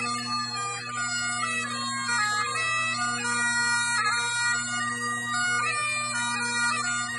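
Great Highland bagpipe being played: the drones hold a steady low tone under a chanter melody that moves quickly from note to note.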